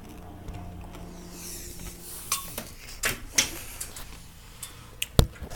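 Handling noise: a few sharp clicks and knocks, the loudest near the end, over a low steady hum that fades out in the first couple of seconds.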